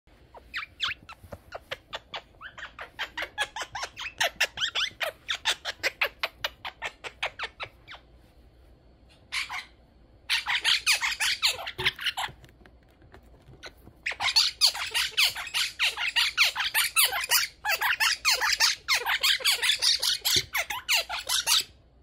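A quaker parrot tearing and shredding tissue paper with its beak, a crinkly rustling in quick strokes. A run of short rustles gives way, after a pause, to longer bursts of dense crinkling and tearing.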